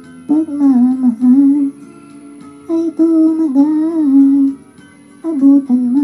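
A voice singing the melody of a Tagalog karaoke ballad through a microphone plugged straight into a small amplifier and speaker, dry with no echo effect. It comes in three phrases with short breaks between them.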